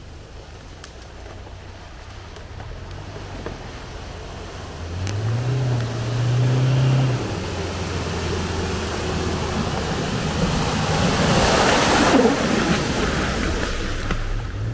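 Toyota Hilux Arctic Trucks pickup's engine working as it drives off-road; the engine note rises and grows louder about five seconds in. A broad rushing noise swells near the end.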